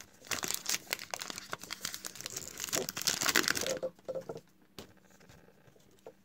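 A trading card pack's wrapper being torn open and crinkled by hand: a dense crackle that lasts about three and a half seconds, loudest just before it stops abruptly, followed by a few faint handling clicks.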